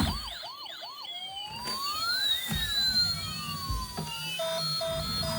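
Electronic siren sounds: a fast repeating whoop that stops about a second in, then a long sweeping tone that rises and falls, and from about four seconds in a regular run of short beeps.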